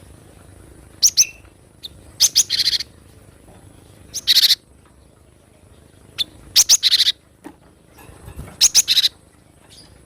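Cinereous tit (gelatik batu) calling: short bursts of sharp, high chirping notes, about five bursts spaced roughly two seconds apart.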